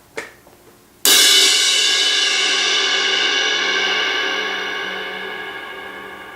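Zildjian 18-inch K Dark Thin crash cymbal struck once about a second in, then ringing and slowly fading away.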